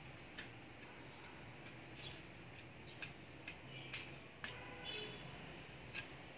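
Small hand trowel digging and scraping into loose garden soil: a string of faint, irregular clicks and scrapes.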